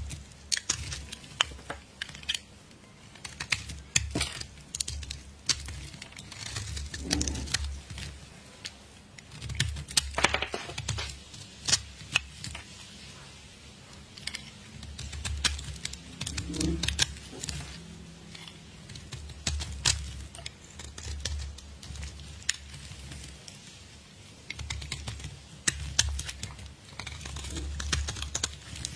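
A blade cutting into a dry, chalky bar of soap: irregular crisp crackles and snaps as flakes break away, in clusters with short pauses between.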